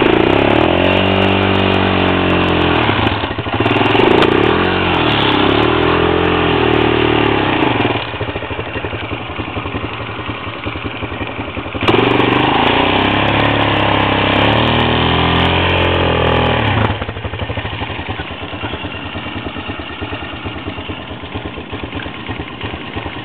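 Honda Recon 250 ATV's single-cylinder four-stroke engine pulling through snow, its pitch rising and falling with the throttle. It drops to a quieter, steadier run about a third of the way in, picks up again in the middle, and eases off once more for the last part.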